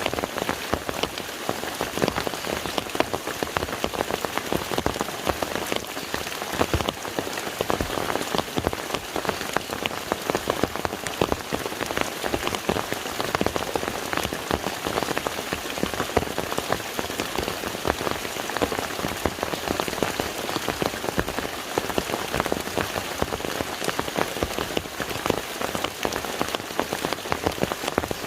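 Steady rain falling on a lake's surface: a dense, even patter of countless drops.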